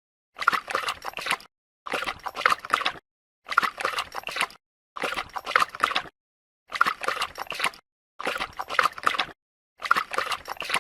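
Dog lapping water, in bursts of rapid wet laps about a second long, separated by short silent gaps at an even pace, seven times.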